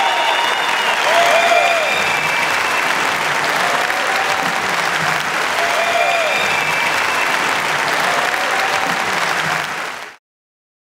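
A concert audience applauding steadily. The applause cuts off abruptly about ten seconds in.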